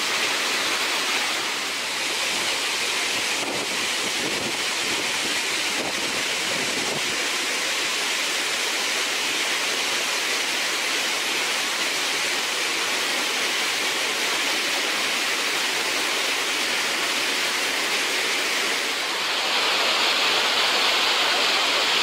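Krimml Waterfalls (Krimmler Ache) rushing steadily as a dense, unbroken roar of falling and churning glacial water. About three seconds before the end the rush turns slightly louder and hissier.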